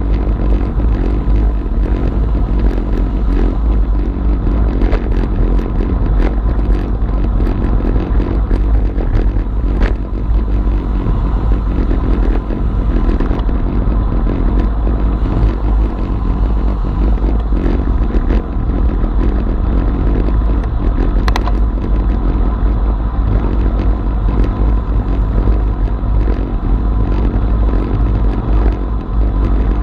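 Wind buffeting a bike-mounted action camera's microphone at around 35–43 km/h, a steady low rumble with road and tyre noise under it, and a few faint clicks.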